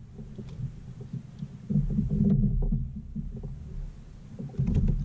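Muffled low knocking and rumbling from a kayak while a hooked bass is fought to the boat, louder about two seconds in and again near the end.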